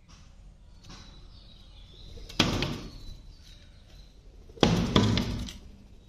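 Sharp knocks on window glass, one cluster about two and a half seconds in and a quick run of several strikes near the end, from a flameback woodpecker pecking at the pane.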